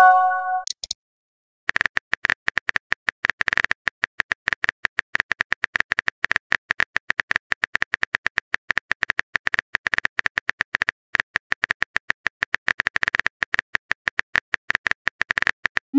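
Phone keyboard click sounds of a message being typed, rapid and irregular, several taps a second. They follow a short chime of a message arriving.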